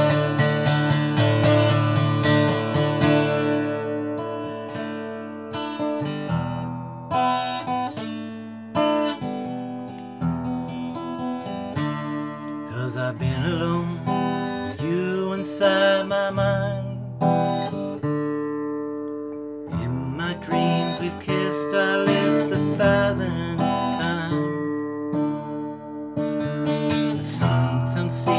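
Acoustic guitar strummed in a steady song accompaniment, with a man's voice singing along in drawn-out, wavering notes around the middle.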